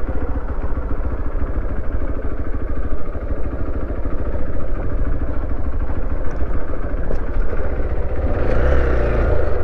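Motorcycle engine running steadily while riding, growing louder about a second before the end.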